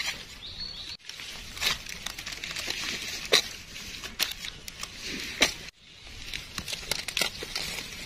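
Dry leaf litter rustling and crackling, with scattered sharp snaps and clicks, as someone moves through it and handles it while picking mushrooms. The sound drops out briefly twice, about a second in and just before six seconds.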